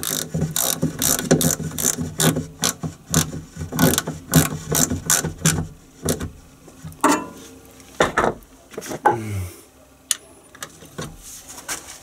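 Ratchet wrench clicking in quick runs as it tightens the rear differential's filler plug. The clicking stops about six seconds in and is followed by a few knocks.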